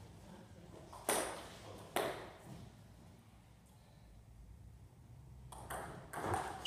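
Table tennis ball clicking: two sharp ball strikes about a second apart, then near the end a rally starts, with quick clicks of the ball off bats and table.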